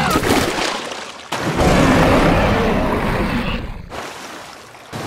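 Cartoon water sound effects: a splash dying away, then about a second and a half in a sudden loud rush of churning water that fades out.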